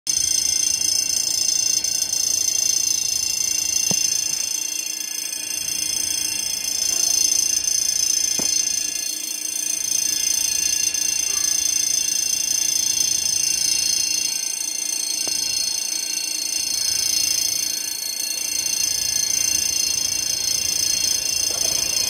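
Steady high-pitched whine made of several thin tones together, swelling and fading slowly every few seconds, with a couple of faint clicks.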